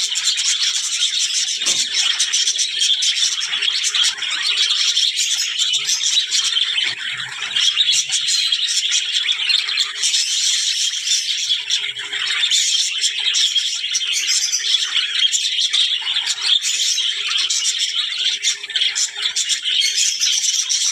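Budgerigars chattering and warbling without a break, a dense high-pitched twittering full of quick clicks and chirps.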